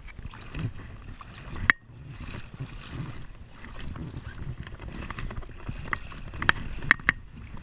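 Handling noise on an inflatable kayak: a hand rubbing and pressing on the inflated side tube, with a low rumble throughout, one sharp click nearly two seconds in and several quick clicks near the end.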